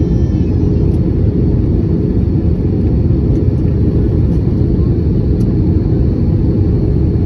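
Airbus A320 cabin noise in flight, heard at a window seat: a loud, steady low rumble of engines and airflow, with a faint even hum over it.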